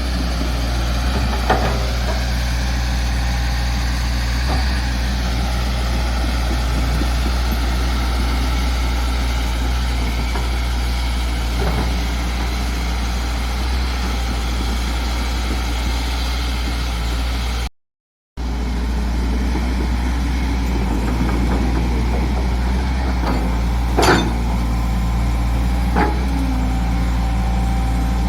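Excavator engine running steadily, with a few sharp metallic knocks over it, the loudest about two-thirds of the way through. The sound cuts out for about half a second just past the middle.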